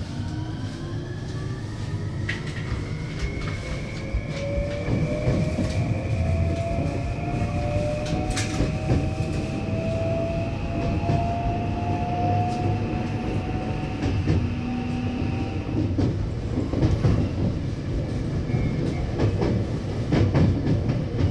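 JR West 521 series electric multiple unit pulling away from a station, heard from inside the front car: the traction motors' inverter whine rises steadily in pitch for about sixteen seconds as the train gathers speed, then levels off and fades. Under it runs the rumble of the wheels on the rails, with scattered clicks from the rail joints.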